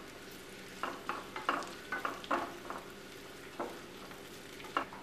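Wooden spatula stirring and scraping in a nonstick pan, with a soft sizzle of garlic, ginger, green chillies and deggi mirch frying in hot oil for a tadka. The scrapes come in quick, uneven strokes, thickest in the first few seconds and fewer toward the end.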